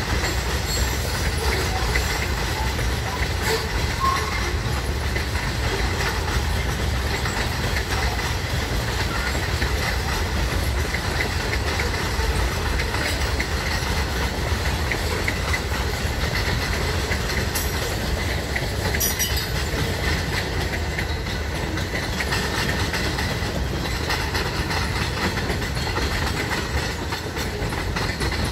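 Freight cars (covered hoppers, boxcars and tank cars) rolling past on steel wheels: a steady rumble with the clickety-clack of wheels over the rails.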